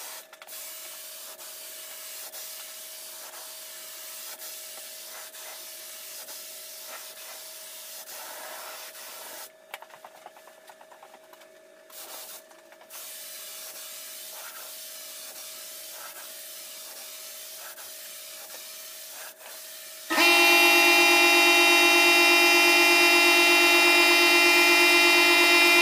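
HVLP spray gun hissing steadily as it sprays paint, with a thin steady tone under the hiss; the hiss stops briefly twice. About twenty seconds in, a much louder steady drone made of several tones starts suddenly.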